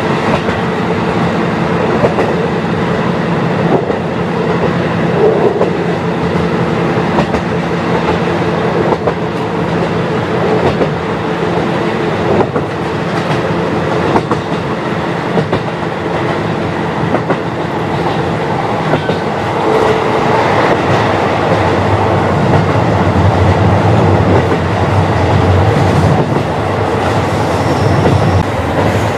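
KiHa 40 diesel railcar running, heard through an open window: a steady diesel engine drone under rushing running noise, with the wheels clicking over rail joints now and then. About two-thirds of the way through, a deeper low rumble comes in for several seconds.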